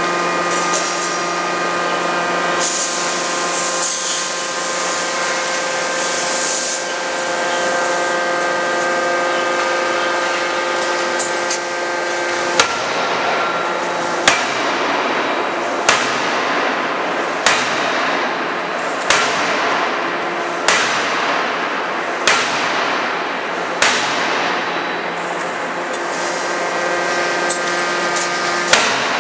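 A 200 kJ CNC die-forging hammer striking hot metal, one heavy blow about every one and a half seconds starting about twelve seconds in, nine blows in all with a short pause near the end. Under it runs a steady machine hum with a few held tones, and a hiss a few seconds in.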